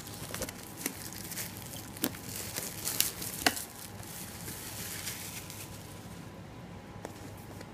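Clear plastic shrink-wrap being peeled off a cardboard product box and crumpled in the hands: a run of sharp crinkles and crackles over the first five seconds or so, then only faint handling noise.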